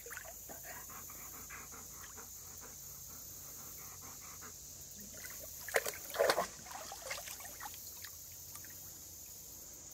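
Yellow Labrador panting softly while standing in shallow creek water, with the water sloshing around its legs as it moves, loudest about six seconds in.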